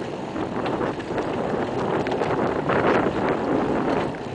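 Wind buffeting the camera's microphone, with footsteps on brick paving ticking faintly through it.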